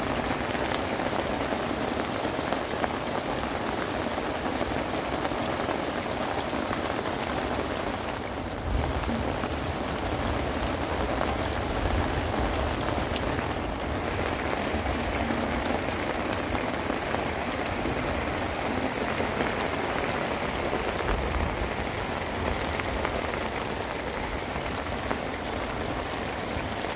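Steady rain falling on wet stony ground, a dense patter of countless drops. A low rumble swells for a few seconds in the middle.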